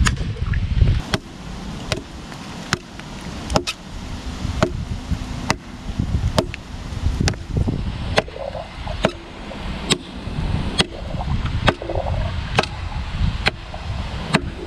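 ESEE Junglas machete chopping into a log, with sharp chops in a steady rhythm of a little more than one a second.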